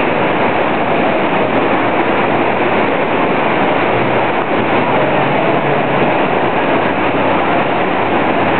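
Steady, loud background din of a large indoor shopping-mall hall: an even wash of noise with a faint low hum and no distinct events.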